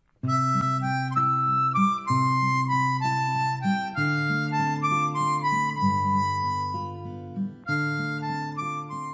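Background music: a slow melody of held notes over sustained chords, starting a moment in after a brief silence.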